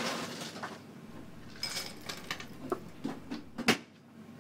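Ice cubes scooped from the bar's ice well and dropped into a rocks glass: a loud clatter of ice at the start, then scattered clinks and knocks of cubes against glass, with one sharp clink near the end.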